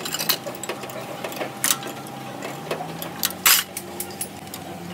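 Hand tools clicking and clanking irregularly against metal parts on the underside of a tractor, with a brief louder scrape about three and a half seconds in, over a faint steady hum.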